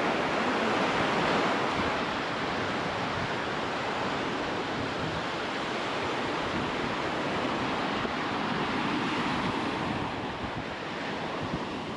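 Caribbean surf washing steadily onto a sandy beach, with wind buffeting the microphone.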